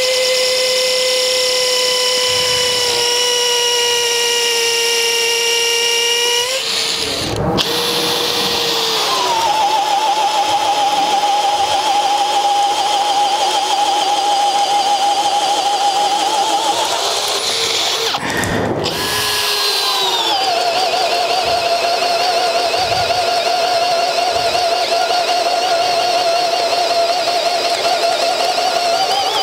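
Cordless hammer drill running in hammer-drill mode, a steady high motor whine. It cuts out briefly about 7 seconds in and again about 18 seconds in, and comes back at a different pitch each time.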